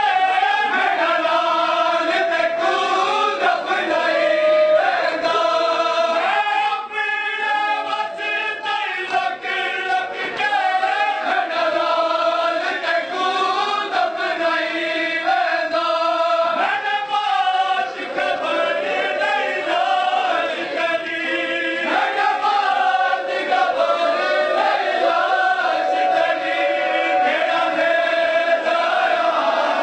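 A group of men chanting a nauha, a Shia Muharram lament, sung together in a steady unbroken line.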